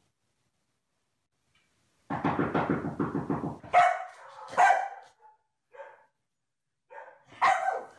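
Komondor dog giving a low growl for about a second and a half, then barking several times in short loud barks.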